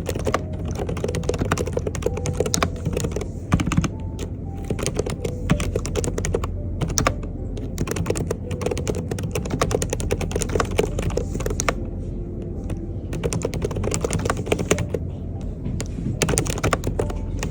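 Continuous typing on an Mstone mechanical keyboard with low-noise coral switches (45 g): a dense, irregular stream of key clicks over a steady low hum.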